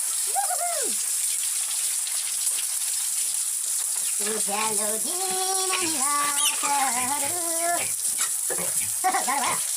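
A steady hiss of spraying water, typical of a pig pen being washed down. Over it come pitched vocal calls: a short rising-and-falling one about half a second in, a longer run of held, stepping tones in the middle, and a brief one near the end.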